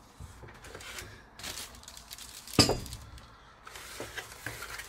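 Handling noises of unpacking percolator parts: faint rustling of cardboard and plastic wrap, with one sharp clink a little past halfway through.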